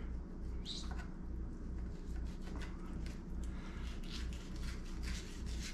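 Fillet knife working between the skin and meat at the tail of a speckled trout fillet on a cutting board: a run of faint short scrapes over a steady low hum.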